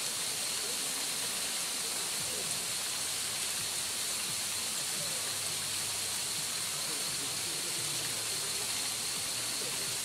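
Steady outdoor background hiss in forest, even and unchanging, with a faint high steady tone running through it.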